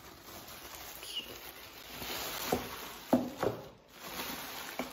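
Thin plastic shopping bag crinkling and rustling as it is wrapped and bunched around a container. A few sharp knocks come around the middle.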